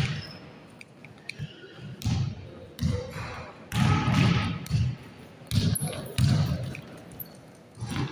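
Basketball dribbled on a wooden gym court, each bounce a short thud, coming unevenly about once a second.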